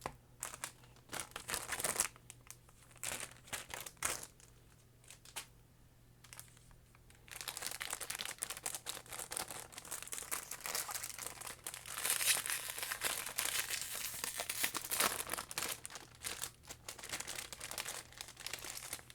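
Foil Pokémon booster-pack wrappers and plastic packaging handled close to the microphone, crinkling. Scattered crackles at first, then continuous crinkling from about seven seconds in.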